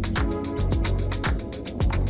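Background electronic music with a steady beat: a kick drum about twice a second under fast hi-hats.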